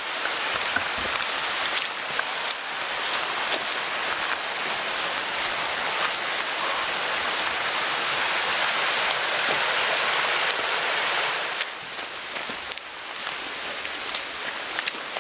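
Steady rain falling through woodland, mixed with the rush of a small stream. The water noise drops off about three-quarters of the way in.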